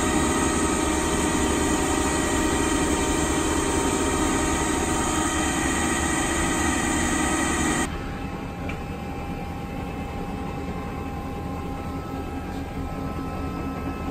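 Haas SL20T CNC lathe running: a steady machine hum with several steady whining tones. About eight seconds in the sound drops suddenly to a quieter, duller hum.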